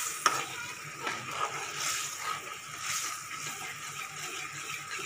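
Metal spoon stirring watery curry gravy in an aluminium pan, the gravy just thinned with a glass of water. One sharp clink of the spoon on the pan comes just after the start.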